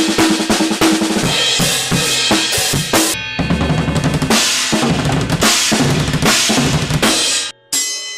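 Drum kit played with bass drum and snare in loud music with sustained pitched tones. The playing stops suddenly near the end, then one last hit rings out and fades.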